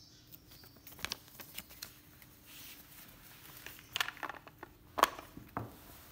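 Paper and cardboard packaging handled on a table: light rustling with scattered taps and clicks, the sharpest about four and five seconds in.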